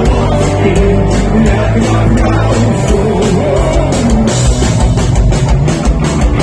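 Live rock band playing an instrumental passage of a punk-rock song: electric guitar over a steady drum-kit beat, with no vocals.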